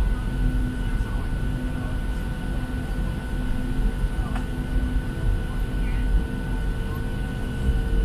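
Cabin noise inside a Boeing 737-700 taxiing: a steady low rumble from its CFM56 jet engines at low power, with a few steady whining tones over it.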